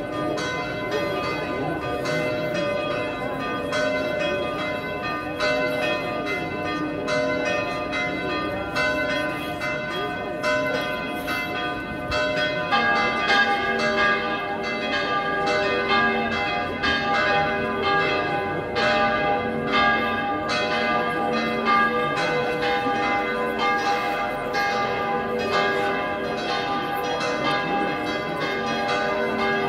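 Church bells ringing from the tower, several bells struck over and over in a steady repeating pattern. About thirteen seconds in, a lower-pitched bell joins the peal.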